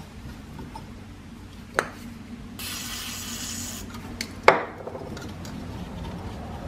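An aerosol spray can hissing in a burst of about a second. Sharp metal clinks come before and after it, the loudest about four and a half seconds in with a brief ring.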